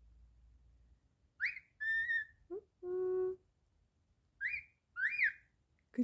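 Cockatiel whistling in short phrases: a quick rising note and a held whistle about a second and a half in, a lower held tone a second later, and two quick rising-and-falling chirps near the end.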